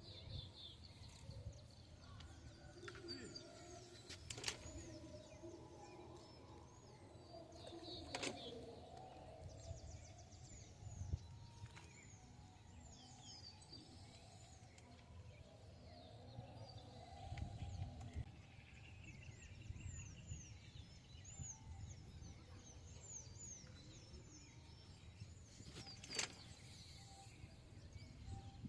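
Faint outdoor ambience with runs of high, repeated bird chirps, broken by a few sharp clicks and a low steady rumble.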